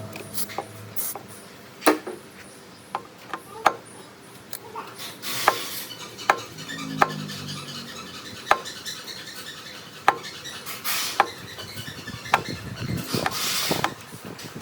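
Hand work on metal parts: irregular clinks and knocks as pieces are handled and tapped, with a few short scraping rubs.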